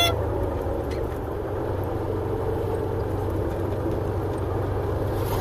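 Steady engine and road noise of a vehicle driving at speed, heard from inside the cab; the end of a horn blast cuts off right at the start.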